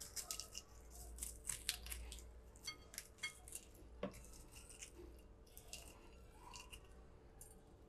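Pan-fried dried red chilies being crumbled by hand in a ceramic bowl: a faint run of crisp, dry crackles, thickest in the first half and thinning out later.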